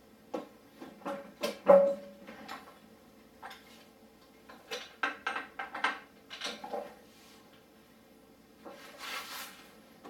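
Metal tool clicks and knocks: a 32 mm socket and breaker bar being worked on a dirt bike's rear axle nut, in two clusters of sharp clicks with the loudest knock about two seconds in. A short scraping rustle comes near the end.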